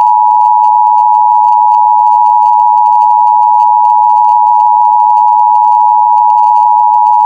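Emergency Alert System attention signal: two close tones sounded together as one steady, loud, unbroken beep, the alarm that announces an emergency alert message is about to follow.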